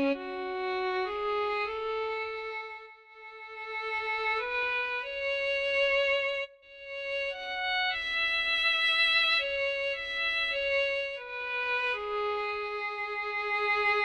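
Sampled solo violin from the UVI Orchestral Suite library playing a slow melody of single held notes, one after another, with vibrato. There is a brief break about halfway.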